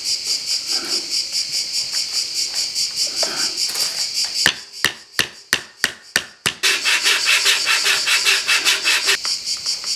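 A quick run of about seven sharp taps of a small hammer on the bent wooden rim of a tambourine frame being made, about halfway through. Behind it, insects chirp in a steady high pulse, louder for a couple of seconds after the taps.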